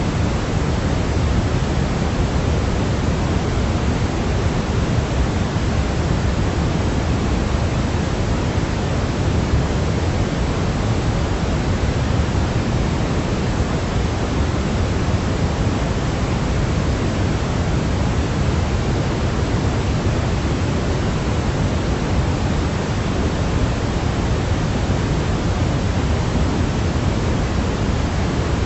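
Steady synthetic white noise for sleep: a constant, unchanging hiss, heavier in the low end.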